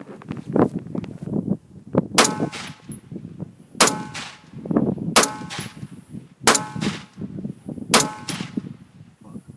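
Five gunshots fired from the prone position, roughly one and a half seconds apart, each a sharp crack with a metallic ring.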